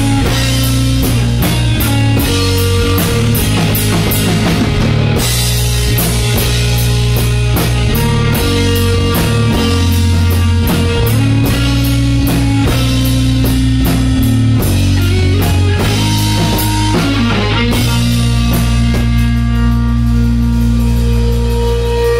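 Rock band playing live: electric guitar, bass guitar and drum kit with cymbals, an instrumental passage with held guitar notes over a steady beat.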